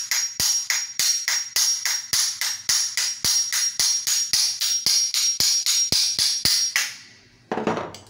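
Hammer blows on the old steel shaft of an Arno electric fan motor, driving the shaft out: quick, even, ringing metallic strikes, about three or four a second. The strikes stop about seven seconds in, and a single clunk follows.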